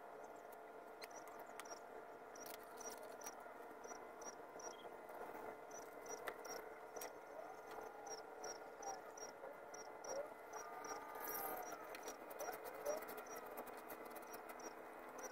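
Faint short high-pitched chirps repeating about twice a second, typical of an insect, over a steady faint hum of several tones, with scattered light clicks.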